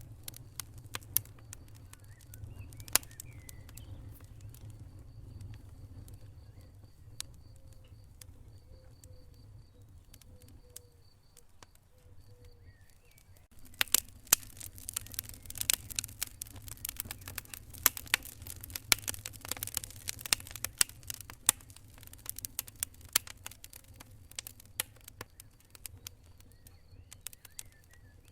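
Wood fire burning in a fireplace, crackling with sharp pops over a low rumble; the crackling becomes much busier about halfway through.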